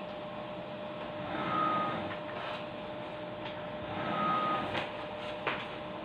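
An electronic beep, a single steady tone of about half a second repeated every two and a half seconds or so, over a faint steady hum and background hiss, with a light knock near the end.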